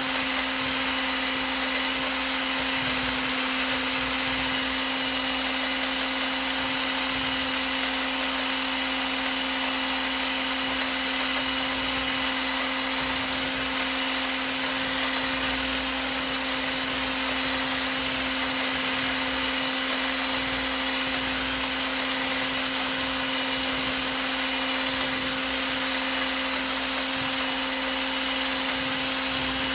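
Handheld electric whisk with a coil head running steadily in a steel bowl of lotion mixture, whipping it to thicken: an unbroken motor hum at one pitch with a hiss over it.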